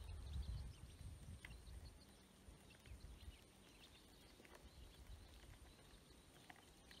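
Ducklings peeping faintly and sparsely while pecking feed from a plastic basin, with a few soft taps of bills on the plastic.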